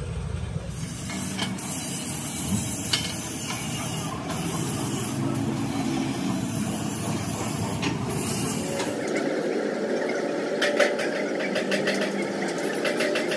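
Steady workshop hiss, then about two-thirds of the way in a quick run of scraping strokes from a hand tool working the paint on a steel tractor wheel centre.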